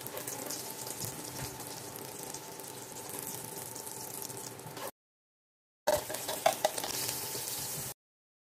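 Cabbage and egg omelet patties sizzling in hot oil in a nonstick pan, a steady frying hiss. The hiss drops out for about a second a little past halfway, then returns with a few sharp clicks, and stops short of the end.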